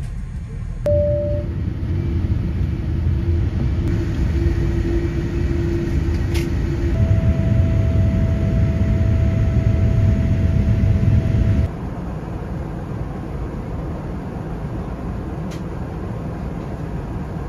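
Airliner cabin noise aboard a Boeing 787-9: a steady low rumble of engines and airflow, heard in several abruptly cut segments. It is loudest for a few seconds past the middle, with a steady tone over it, then drops back suddenly.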